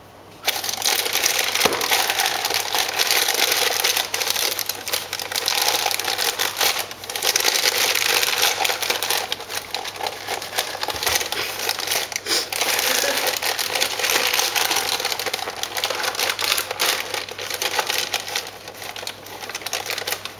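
Bisquick being stirred by hand into creamed cookie dough in a mixing bowl: a continuous crackly scraping and crunching, with a couple of brief pauses.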